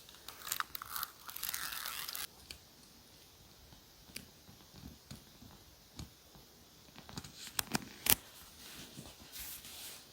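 Paper being torn for about two seconds near the start, followed by scattered light taps and clicks of stationery handled on a desk, with one sharp click about eight seconds in.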